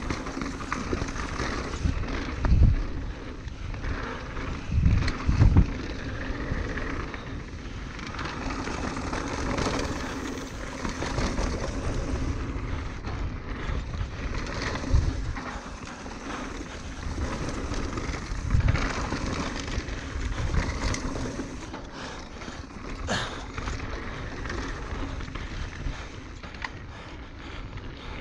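Norco Range enduro mountain bike descending a dirt trail at speed: tyres rolling and skidding over dirt and rock, the bike rattling, and wind rushing over the microphone. A handful of heavy thumps stand out, two close together about five seconds in.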